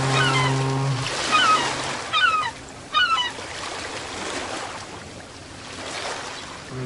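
Ocean surf washing, swelling and easing, with birds calling in quick squeals during the first three seconds. A low, steady horn sounds at the start, stops about a second in, and starts again at the very end.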